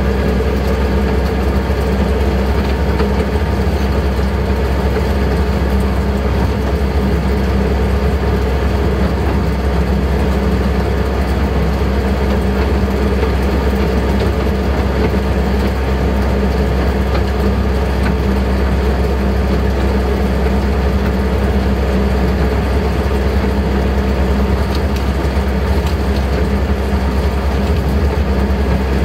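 Miniature railway locomotive's engine running steadily, heard from the cab on the move, a constant low hum without breaks.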